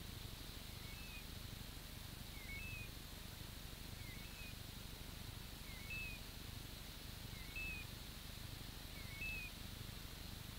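A hunting dog's beeper collar chirping faintly, a short two-note chirp repeating evenly about every second and a half, over the rustle and thump of walking through brush.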